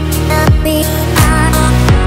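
Electronic background music with a steady, deep kick-drum beat and sustained notes over it.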